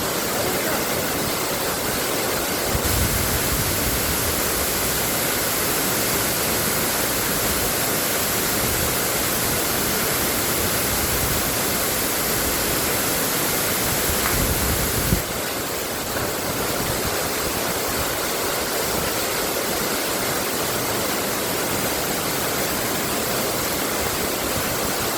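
Steady rushing of fast-flowing water. It grows fuller and louder about three seconds in, then drops back abruptly a little past the middle.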